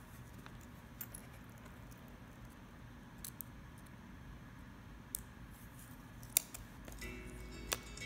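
Light clicks and taps of thin metal tubes being handled, slid together and set down on a wooden board, over a steady low hum; the sharpest click comes a little after six seconds, another near the end.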